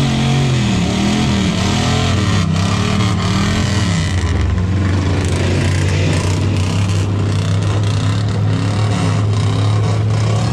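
Off-road vehicle engines running: one holds a steady low drone while another's pitch rises and falls as it is revved, most plainly in the first few seconds.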